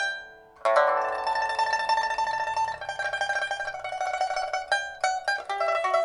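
Solo pipa, a 2022 Zhang Tianshuo suanzhi pipa with a steel first string and copper-wound lower strings, test-played after a new soundboard and new frets were fitted. After a brief hush at the start, it plays a sustained tremolo melody of rapidly repeated plucks, then switches to separate plucked notes near the end.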